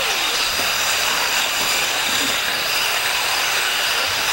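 Steady high-pitched whine of a pack of 1:8-scale electric off-road buggies racing on a dirt track: their electric motors and drivetrains running at speed, with a hiss of tyres on the dirt.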